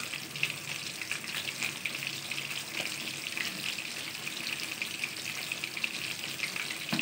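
Battered fish pieces deep-frying in hot oil in a karahi: a steady crackling sizzle of bubbling oil.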